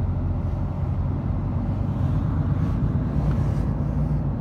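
Heavy truck's diesel engine running steadily with a low hum.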